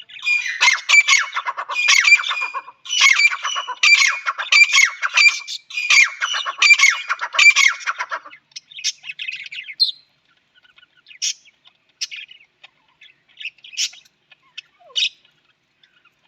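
Harsh, squawking bird calls in three dense, rapid bursts over the first eight seconds or so, then scattered short chirps.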